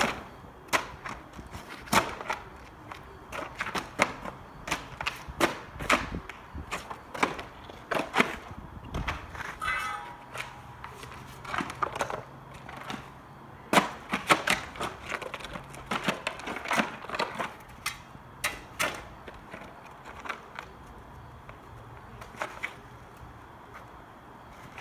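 Irregular wooden clacks and knocks from wooden asphalt shoes, soaked so asphalt won't stick, as they are stepped into and walked on over gravel and fresh asphalt, a few every second, thinning out near the end.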